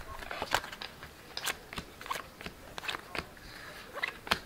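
Stiff, glossy Topps Chrome baseball cards being flipped through by hand, each card snapping and sliding off the next. It makes an irregular string of sharp clicks with soft rustling between them.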